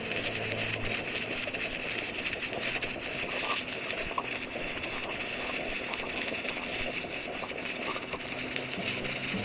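Stick (arc) welding with a rod electrode: a steady, dense crackling hiss from the arc as a bead is laid.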